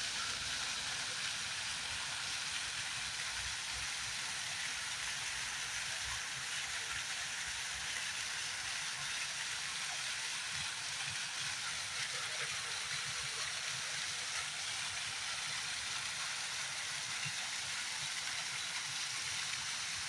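Small fountain running, its water falling and splashing as a steady, even hiss.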